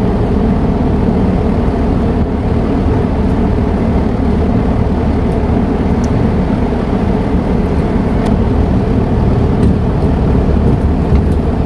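Gree split-type air conditioner's compressor humming steadily without starting up: a hard-starting compressor, the cause of the E5 error.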